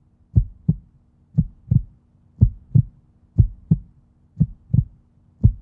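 A heartbeat sound effect under the opening logo: paired low thumps, lub-dub, about once a second, over a faint steady low hum.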